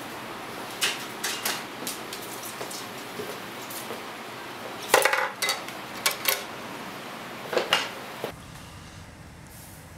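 Arrow shafts clinking and clattering against a bent-wire quiver rack and wooden frame as they are set in: a string of sharp light clicks in clusters, loudest about five seconds in, stopping about eight seconds in.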